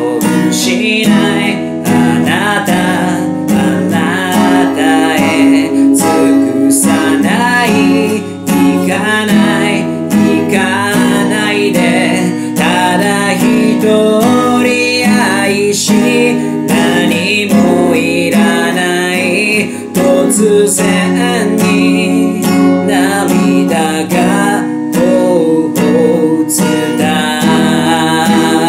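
A man singing in Japanese while strumming an acoustic guitar.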